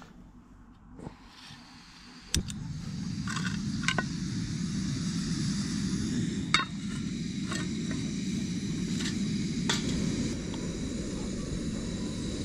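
Butane camping stove lighting with a sharp click a little over two seconds in, then its burner flame running with a steady low rushing noise. Several sharp metallic knocks and clinks come on top as a pan is handled and set on the burner.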